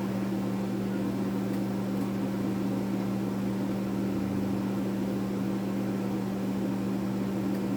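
Steady hum of a running kitchen appliance fan, with a constant low tone under an even whir.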